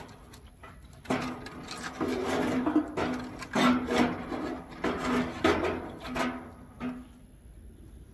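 A stick of wood scraping and rubbing against the steel firebox of an offset barrel smoker as burning logs are raked around, with the metal ringing faintly on each stroke. Five or six strokes come in quick succession and stop about seven seconds in.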